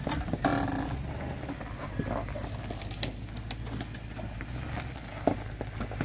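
Toyota Tundra pickup crawling slowly through thick brush: a steady low engine rumble, with twigs and branches snapping and scraping against the truck, the longest scrape about half a second in.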